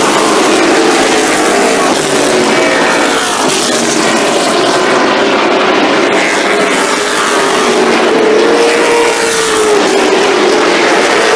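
Late Model stock cars racing round a short oval, their V8 engines running hard at speed. The engine note swells and fades as cars pass and go into the turns, with one clear rise and fall near the end.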